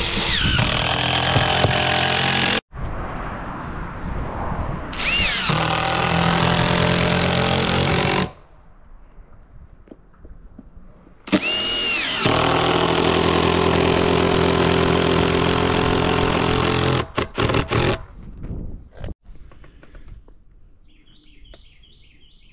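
A power tool runs in three bursts of a few seconds each, its motor whining up to speed at the start of each. A few sharp knocks follow near the end.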